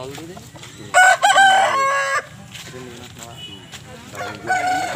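Country rooster crowing: one loud, long cock-a-doodle-doo about a second in, then a second, quieter crow near the end, over faint market chatter.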